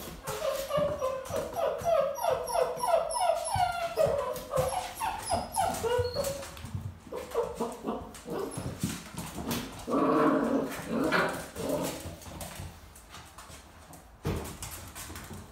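Dogo Argentino puppies whining and yipping in a quick string of short, high calls while they play, with a louder, rougher call about ten seconds in. Their claws click on the hard vinyl floor, and there is a sharp knock near the end.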